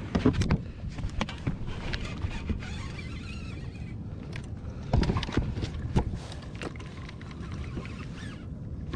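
Scattered knocks, clicks and rattles of gear being handled on a Hobie Pro Angler 14 fishing kayak during a fish bite, with the louder knocks about five and six seconds in, over a low rumble of wind and water.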